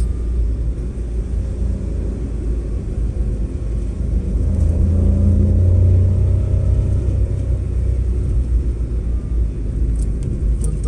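Low, steady rumble of engine and road noise inside a moving car's cabin. It swells for a couple of seconds in the middle with a deeper engine hum.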